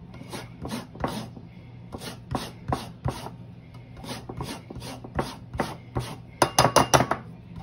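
An orange being zested on a microplane grater: the peel rasps against the blades in short strokes, about two or three a second, and speeds into a quick run of strokes near the end.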